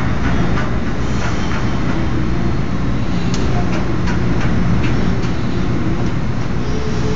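Steady low rumble of an indoor ice rink's background noise, with a few faint clicks scattered through it.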